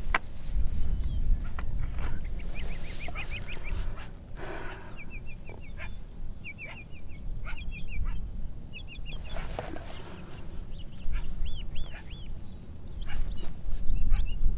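Coyotes yipping in short quick runs of high-pitched calls, several runs in a row, over a steady low rumble.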